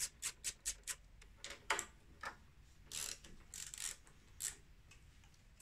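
Small socket ratchet clicking as hex bolts are loosened: a quick, even run of clicks, then irregular bursts of clicking with a few longer rattling spins, stopping about four and a half seconds in.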